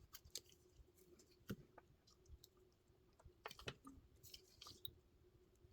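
Faint, scattered small clicks and taps from handling soldering tools and small electronic parts, with a faint steady hum underneath.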